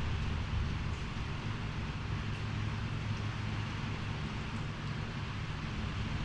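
Storm noise: a steady low wind rumble with an even hiss of rain.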